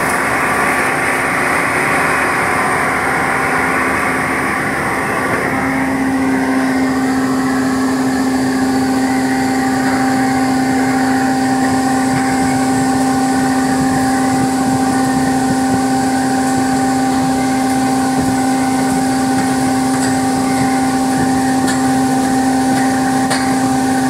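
A Sany crane's air-conditioning system running with its compressor working during a refrigerant recharge, over the crane's running engine. A steady mechanical hum; about six seconds in, the higher hiss drops away and it settles into a steadier low drone.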